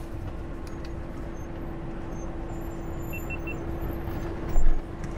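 Camper van engine running at low revs as the van creeps down a steep, rough bank on the brakes. Three short high beeps a little after three seconds in, and a low thump about four and a half seconds in.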